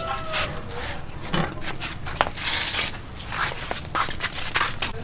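A large metal cooking pot is settled onto a wood-fired stove, giving scattered clicks and knocks, with a short hiss about two and a half seconds in.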